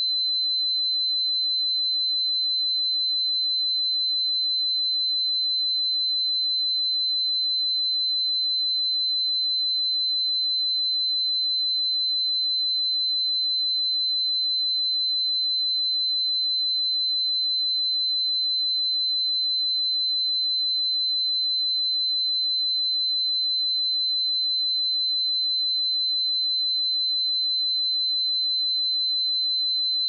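A steady, high-pitched pure sine-wave test tone at 4053 Hz, one unbroken tone at constant level with no other sounds.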